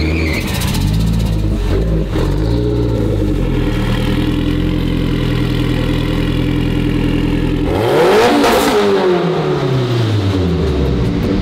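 Sports car engine running at low revs as the car creeps along, with a sharp rev about eight seconds in, the loudest moment, before it settles back to a steady idle.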